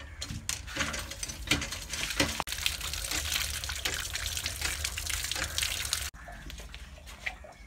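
Water pouring from a tap and splashing over hands as a green elephant apple is rubbed clean under the stream. The running water stops abruptly about six seconds in.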